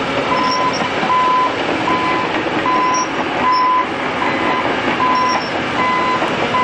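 Heavy machine's reversing alarm beeping steadily, one even tone a bit more than once a second, over a loud continuous rumble of engine and working noise.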